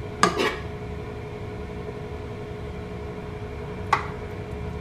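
Silicone spatula spreading cooked spaghetti in a baking pan: a short scrape just after the start and a single tap against the pan about four seconds in, over a steady hum.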